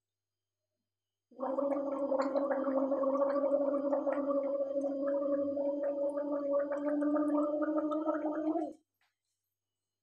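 A woman gargling warm salt water: one long gargle on a steady pitch with a rapid bubbling rattle. It starts a little over a second in and cuts off sharply near the end.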